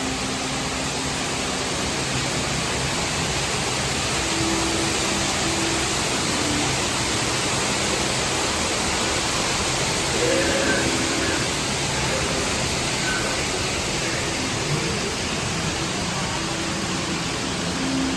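Steady rushing noise with faint, distant voices now and then.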